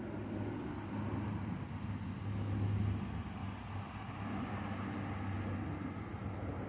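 Steady low rumble of motor traffic, with a continuous engine-like hum.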